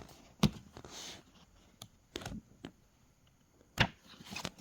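Handling noise: scattered sharp clicks and taps. The two loudest come about half a second in and near the end, with a brief rustle about a second in.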